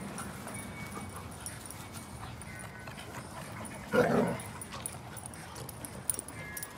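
A dog gives a single short bark about four seconds in. The rest is a low background with faint scattered ticks.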